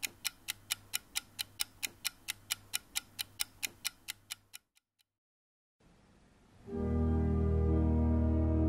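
Rapid clock-like ticking, about four ticks a second over a low hum, which stops after about four and a half seconds. After a second of silence, an organ comes in with a loud held chord with deep bass notes.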